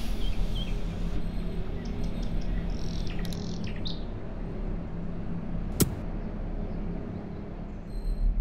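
Birds chirping a few short times over a steady low hum, with a single sharp click about six seconds in.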